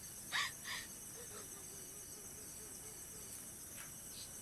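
Steady chorus of night crickets and insects, with a faint mosquito whine wavering in pitch through the middle. A couple of short, sharp sounds come about half a second in.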